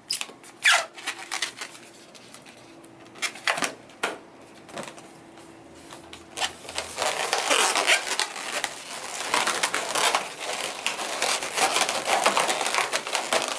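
Latex 260 modelling balloon squeaking and rubbing as it is twisted and wrapped by hand, with one falling squeal under a second in and a dense run of squeaks and rubbing in the second half.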